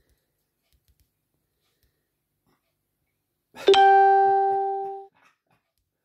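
A single ringing tone about three and a half seconds in. It starts sharply, like a struck or plucked note, fades over about a second and a half, then stops abruptly.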